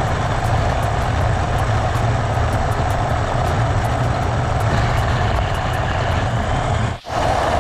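1:16 scale PKX RC monster truck running off-road, a steady loud noise of its electric motor and tyres on rough ground, broken by a brief cut about seven seconds in.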